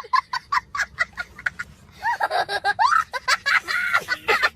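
High-pitched laughter: a quick run of short giggles, then from about halfway longer squealing laughs that rise and fall in pitch.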